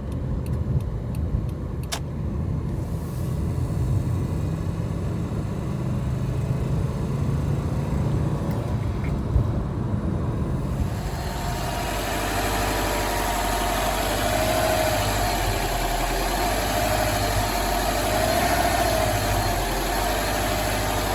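Subaru Forester SH5's EJ20 flat-four engine running, heard from inside the car, with the rattly 'kari-kari' clicking that comes into the driver's seat after an engine-mount replacement; the owner wonders whether it is tappet noise or the injectors. About halfway through, a steady hiss and a wavering whine join the engine sound.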